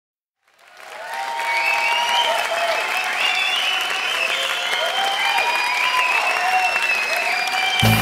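Background music fading in over the first second: a noisy wash with a gliding melody line, a heavy bass and beat coming in near the end.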